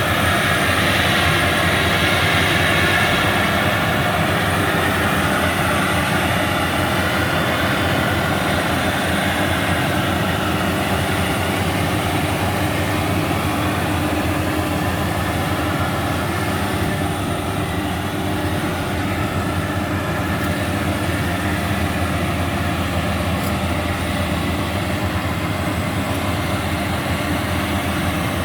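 Rice combine harvester running steadily under load: a constant engine drone with the dense mechanical hiss and rattle of the cutting and threshing works, slightly louder in the first few seconds.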